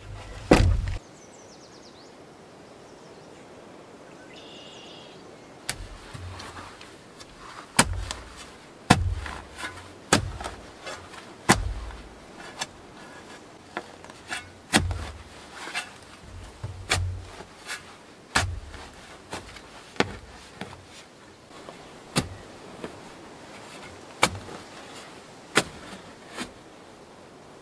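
A small short-handled shovel driven repeatedly into hard forest soil, giving a sharp chopping strike about once a second with dirt scraping between strikes. A single loud knock of a wooden gate comes just after the start.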